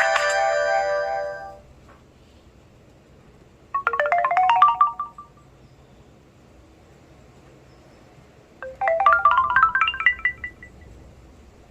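HTC Desire 530 ringtones. One tone fades out in the first second and a half. Then a short, quick run of bright chiming notes that step upward plays twice, about five seconds apart.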